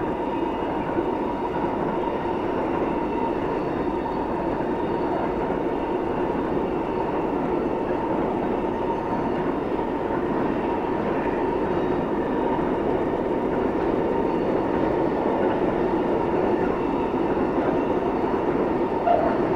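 Freight train rolling past, a long string of pocket wagons carrying truck trailers followed by tank wagons: a steady, unbroken rolling noise of wheels on rail that grows slightly louder near the end.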